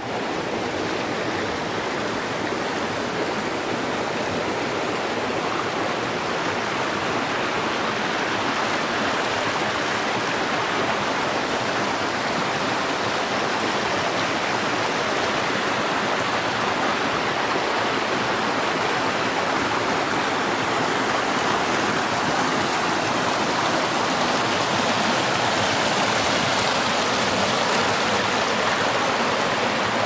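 Forest stream and small cascades rushing and splashing over rocks, a steady even rush of water that grows slightly louder near the end.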